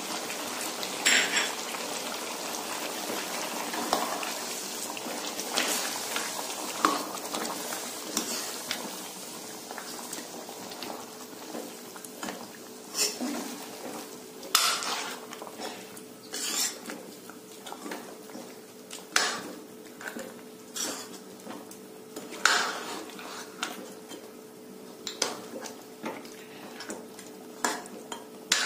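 Metal spatula stirring mutton in a metal kadhai, scraping and clinking against the pan at irregular moments, over a low sizzle of the meat frying in its masala.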